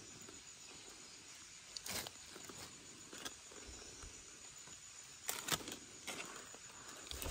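Irregular small snaps, clicks and rustles of hands picking wood ear mushrooms off wood, with a cluster of crackles about five seconds in, over a faint steady high insect drone.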